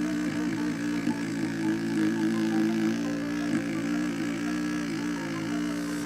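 Small electric motor of a homemade scroll saw running steadily, a constant hum with slight wavers in pitch.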